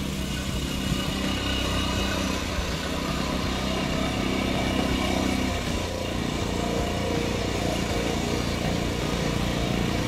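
Neva MB-23 walk-behind tractor's small engine running steadily as it tows a trailer loaded with timber.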